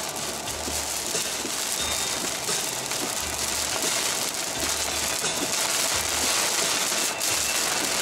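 Heavy, wind-driven rain pelting the windshield and body of a moving car, heard from inside the cabin along with tyre and road noise. A low hum underneath pulses about once every second and a bit.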